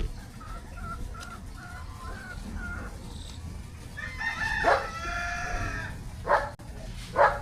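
A rooster crowing once, about four seconds in, with soft short calls before it and two short, sharper calls near the end.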